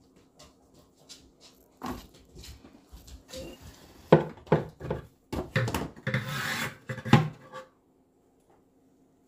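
Scoop scraping and knocking through loose substrate inside a wooden vivarium as the old bedding is cleared out: a run of sharp knocks and rustling scrapes, with a longer scrape about six seconds in.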